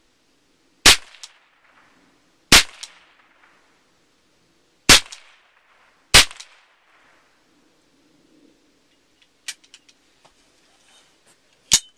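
A .22 AR-style rifle fitted with a titanium muzzle brake firing four single shots a second or two apart, each a sharp crack with a short echo. A few faint clicks follow, then another sharp crack near the end.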